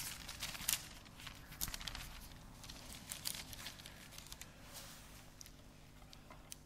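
Bible pages being leafed through near a lectern microphone: quick papery rustles and flicks, busiest in the first two seconds and then thinning to faint, scattered rustles.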